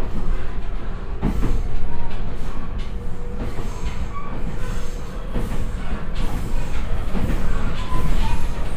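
Cab-interior running sound of an E127-0 series electric multiple unit accelerating from about 30 to 50 km/h under its Toyo IGBT-VVVF traction drive: a steady wheel-and-track rumble with faint motor tones, broken by a few sharp knocks from the wheels over rail joints.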